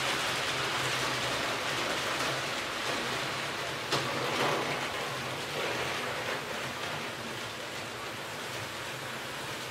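HO-scale model freight wagons rolling past on the track: a steady rushing rattle of the wheels on the rails, with a single sharp click about four seconds in. The noise eases off a little near the end as the last wagons pass.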